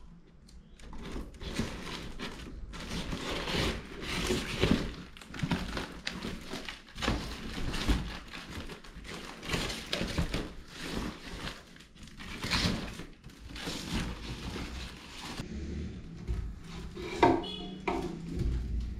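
Cardboard and paper packaging being torn and crumpled off a woven rattan basket: an irregular run of rustling, ripping bursts. The rattan frame knocks and creaks as it is handled.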